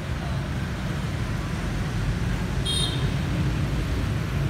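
Steady low rumble of city road traffic, with a short high beep a little under three seconds in.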